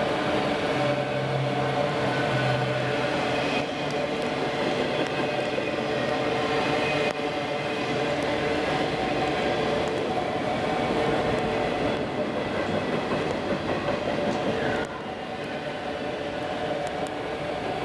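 Freight train of enclosed autorack cars rolling past at speed: a steady rumble of steel wheels on rail with a humming tone in it. The sound drops a little about fifteen seconds in.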